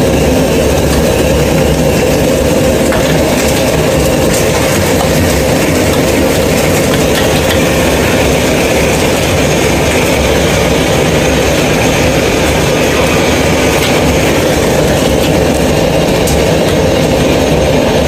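Commercial gas wok burner running full blast with a steady loud roar, under an iron wok of chicken that sizzles and bubbles in its sauce as it is stir-fried.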